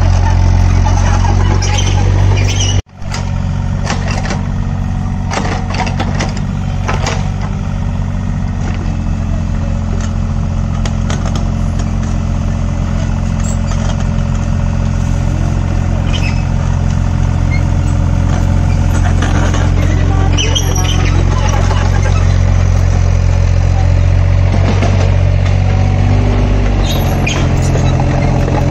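Hitachi ZX33U mini excavator's diesel engine running steadily, with clanks from the machine at work. The sound breaks off for an instant about three seconds in, and the engine note shifts slightly near the end.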